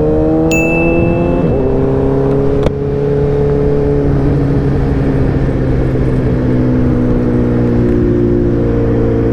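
Sportbike engine heard from on board while riding: its note climbs, drops at two upshifts in the first three seconds, then holds steady at cruising speed, easing slightly.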